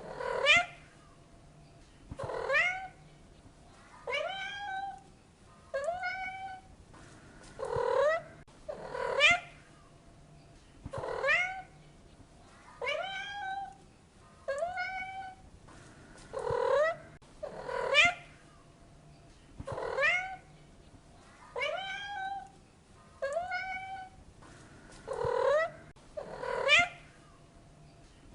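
A domestic cat meowing over and over, about sixteen meows, one every second and a half to two seconds. Some meows are short and loud, others longer with a wavering fall in pitch.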